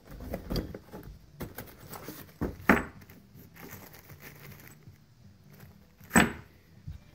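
Small metal bolts and fittings clinking in a plastic bag as it is handled, with parts knocking against the cardboard box. Two sharp knocks stand out, about a third of the way in and near the end.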